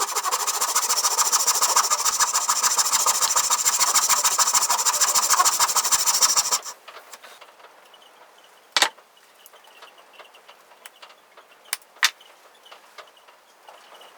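A power tool runs loudly with a fast, rough pulsing and cuts off abruptly after about six and a half seconds. A few sharp knocks follow, the loudest about two seconds after it stops.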